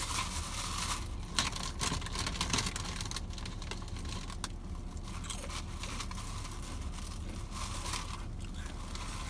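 Deli wrapping paper and a plastic bag crinkling and rustling as sliced cheese is unwrapped by hand, with sharp crackles, busiest in the first few seconds and lighter after.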